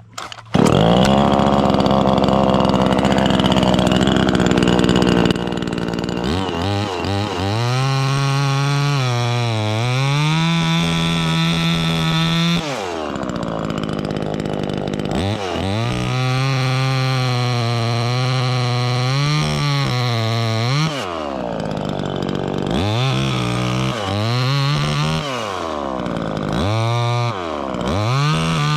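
Chainsaw revving at high, steady speed, then cutting into a tulip tree limb. Its pitch sags under load and climbs back again and again, with a brief drop off the throttle partway through. Several short, quick revs and bogs come near the end.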